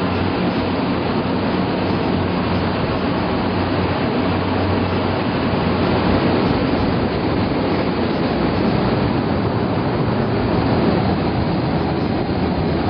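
Steady, loud rush of wind over the microphone during a tandem skydive from an aircraft, with a low hum underneath that fades in and out.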